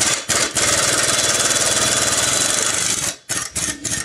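Impact wrench hammering on the bolt of a riding mower's deck pulley, loosening it: a short burst, then one long run of about three seconds, then a few quick blips near the end.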